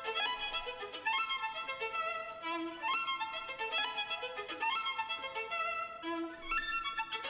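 Background music: a melody of held notes moving from pitch to pitch in steps.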